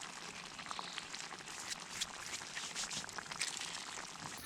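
Onions sizzling faintly in a pan, with a steady hiss dotted with small crackles.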